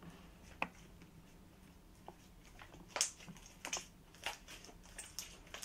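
Borax-activated glue slime being kneaded and pulled between the hands, making faint, irregular sticky clicks and pops, the loudest about three seconds in.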